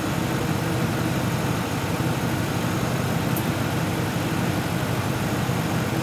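Ford F-150 engine idling steadily with its air conditioning running: a constant low rumble with an even hiss over it.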